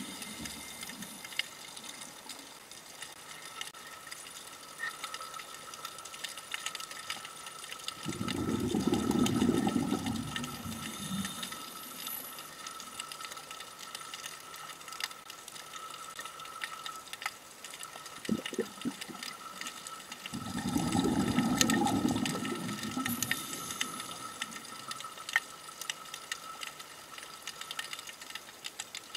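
Scuba diver's exhaled bubbles bursting from the regulator, recorded underwater: two rushing, bubbling bursts about three seconds long, roughly twelve seconds apart, in a steady breathing rhythm. Between them a faint steady whine and scattered small clicks.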